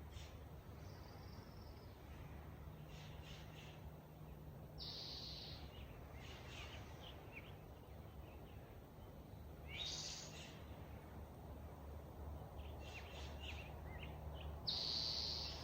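Wild birds singing in a forest: one bird repeats a short, high phrase about every five seconds, with fainter chirps from others in between. A faint low steady hum lies underneath.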